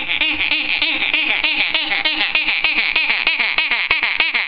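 A girl's voice making a mock ostrich call: a rapid, high-pitched warbling trill of about eight to ten pulses a second.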